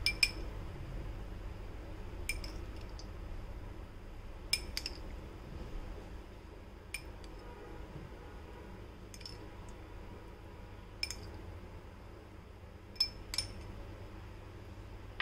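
A metal spoon clinking against a ceramic bowl and glass dessert cups while scooping diced mango: about a dozen short, ringing clinks at irregular intervals, with a pair close together near the end.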